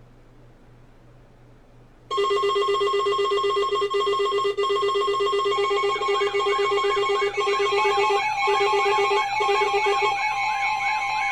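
Weather alert radio alarm tones: several loud, steady electronic tones start abruptly about two seconds in, and a repeating warbling chirp of about two to three a second joins them about six seconds in, overlapping alerts from more than one receiver. They announce an incoming warning broadcast.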